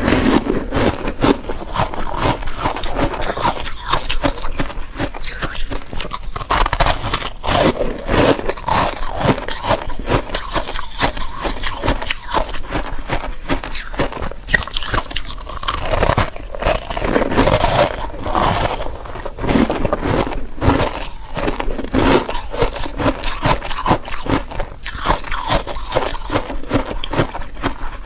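Freezer frost being bitten and chewed: a dense, irregular run of crisp crunches and crackles.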